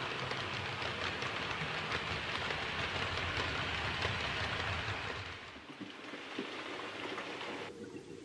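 OO gauge model train coaches running past close by on the track, their wheels making a dense clattering patter of small clicks over a low rumble. The sound fades away about five and a half seconds in as the train moves off.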